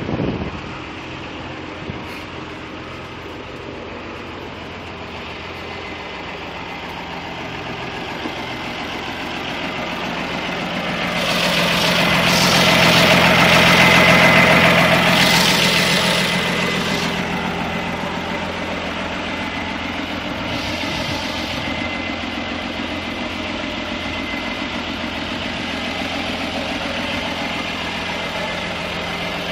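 1996 Massey Ferguson 3650 tractor's diesel engine running steadily. It grows louder over several seconds, is loudest about halfway through with added hiss, then eases back to a steady run.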